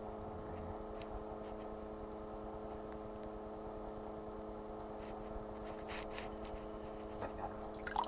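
Steady electrical hum made of several pitched tones. Near the end come a few light knocks and taps as a crappie is lifted out of the ice hole.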